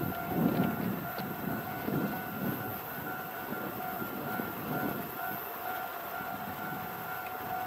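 DE15 diesel locomotive rumbling at idle while standing at the station, its low sound swelling and easing irregularly. A steady, evenly pulsing warning tone sounds over it.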